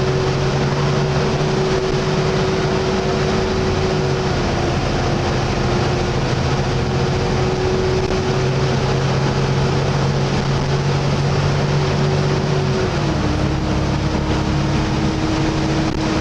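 Volvo B7TL double-decker bus under way, its six-cylinder diesel droning with the loud steady 'hoover' whine over it. About thirteen seconds in, the whine drops a little in pitch and the low engine note changes.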